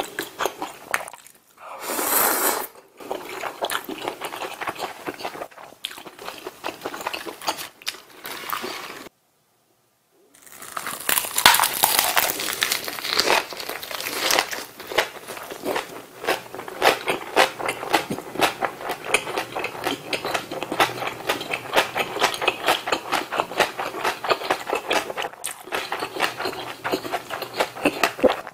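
Close-miked eating: a slurp of ramen noodles about two seconds in, then steady, fast chewing with many wet mouth clicks and smacks on a lettuce-wrapped mouthful of bulgogi and noodles.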